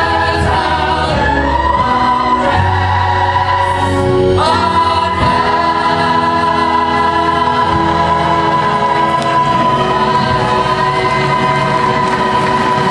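A large cast chorus singing with instrumental accompaniment in a musical's closing number. The notes shift for the first few seconds, then settle into one long held final chord from about four and a half seconds in.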